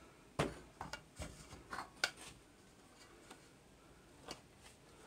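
Light clinks and knocks of a wire whisk and scraper against a stainless steel mixing bowl as the bowl is picked up and handled: half a dozen in the first two seconds or so, then one more about four seconds in.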